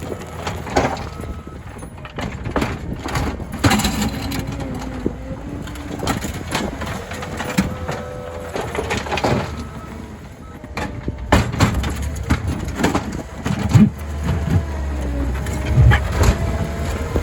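Cat 320 excavator stripping rocky clay topsoil: the engine runs steadily under load while the bucket scrapes and knocks against rock, with many sharp clunks throughout.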